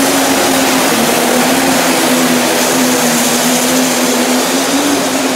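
Modified pulling tractor's engine running loud under heavy load, holding a steady pitch as it drags a weight-transfer sled down the dirt track.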